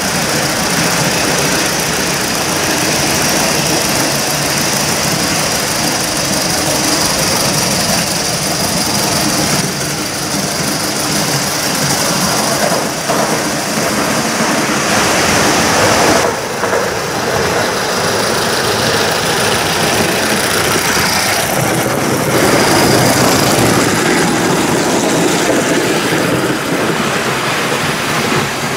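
Aster Gauge 1 live-steam model of a GWR pannier tank locomotive running with its coaches: steady steam exhaust and the rumble of wheels on the track.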